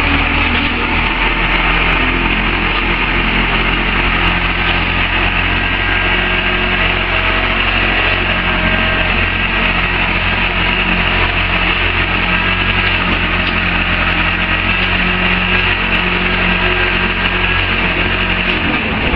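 Truck-mounted auger drilling rig running steadily as its large spiral auger bores into the ground: a continuous engine drone with a steady low hum.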